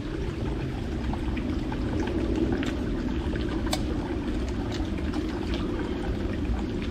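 Water bubbling in a pot over a campfire while heating for coffee, a steady rumble with a few sharp crackles from the fire.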